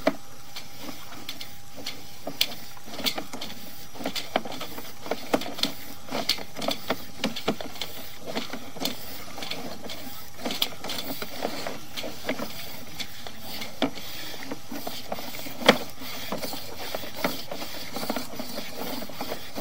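Sewer-scope push cable being fed down a sewer line: irregular clicks and knocks, one louder knock near the end, over a steady hiss.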